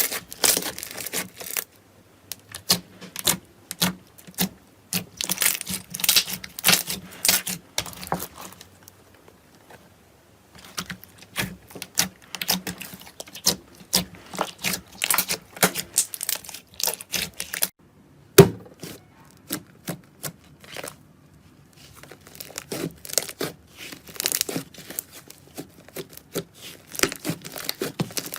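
Slime being squeezed, stretched and pressed by hand, giving dense crackling and popping in long stretches, broken by two quieter pauses. One louder sharp snap comes a little past the middle.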